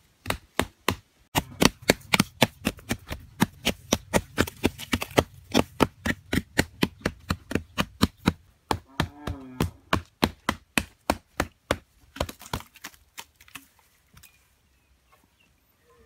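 Rapid, even knocking, about four sharp strokes a second, stopping about twelve seconds in.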